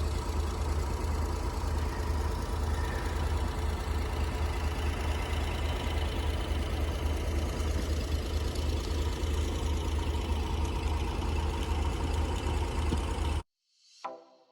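An engine idling steadily with a strong low hum, cut off abruptly near the end.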